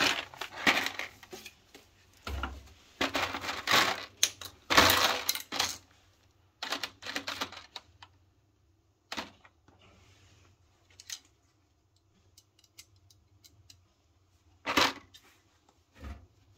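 Tools and small metal parts being handled and clattering, with a burst of clinking and rattling for the first few seconds, then scattered clicks and two louder knocks near the end.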